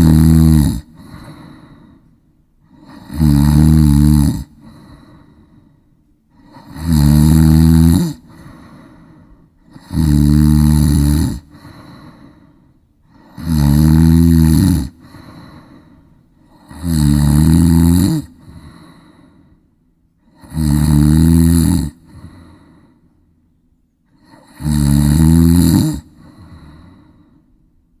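Loud, regular snoring: one long rasping snore about every three and a half seconds, eight in all, each followed by a fainter breath.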